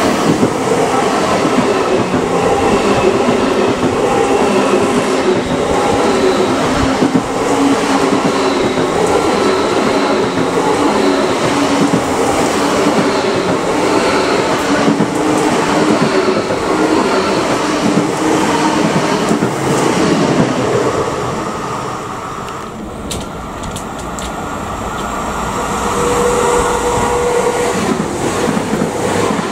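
Deutsche Bahn ICE high-speed electric train running past close by on the platform track, with steady wheel-on-rail rumble and clatter. The sound eases off about twenty-one seconds in and builds again near the end.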